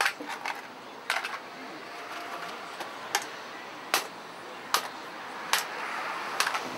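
A series of sharp knocks over a steady hiss: several close together in the first second and a half, then a regular run about 0.8 seconds apart.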